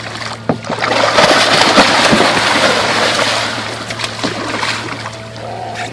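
Splashing and churning water as bull sharks thrash at the surface tearing into a hooked tarpon. The splashing builds about a second in, is loudest for the next two or three seconds, then eases off, with a steady low hum underneath.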